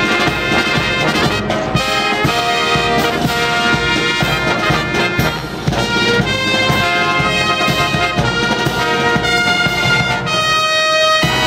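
A brass band playing a tune, full and continuous, with a brief dip about five seconds in.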